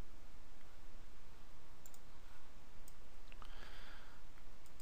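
A few faint computer mouse clicks over a steady low hum of background noise.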